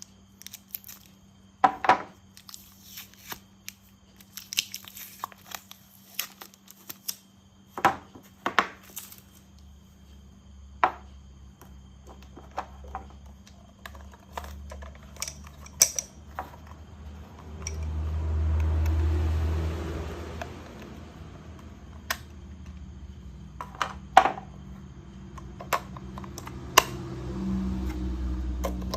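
Hard plastic toy pieces clicking and knocking as they are handled and snapped together, in irregular sharp taps. A steadier noisy swell lasts a few seconds around the middle.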